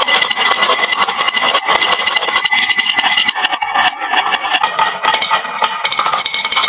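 Many marbles rolling and clattering down a wooden marble-run slope, a dense continuous rattle of small clicks.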